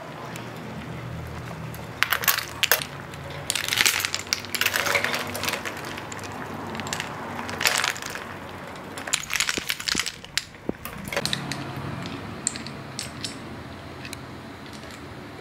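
Boiled snail shells clattering against a stainless steel pot and ladle as the snails are scooped out and handled. A string of sharp clicks and clinks, thickest between about two and eleven seconds in.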